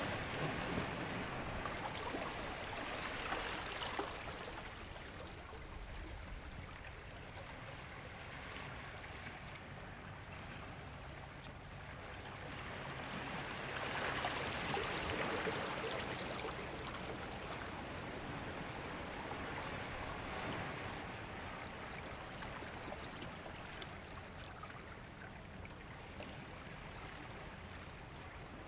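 Ocean waves washing in and drawing back, a continuous rushing hiss that swells with each surge: once in the first few seconds, most strongly about halfway, and more softly later on.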